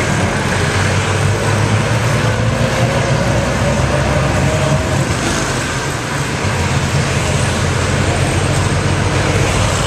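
Steady engine drone and road noise of a moving vehicle in street traffic, with a faint engine note rising slightly a few seconds in.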